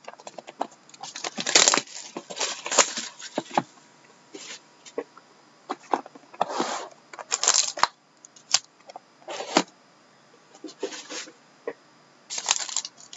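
Hands unwrapping and opening a sealed cardboard box of trading cards: the plastic wrap and cardboard rustle and crinkle in short, irregular bursts, with a few sharp clicks and taps.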